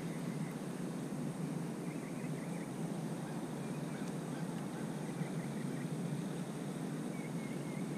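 Steady wind rumble on the microphone, with a few faint high bird chirps scattered through it.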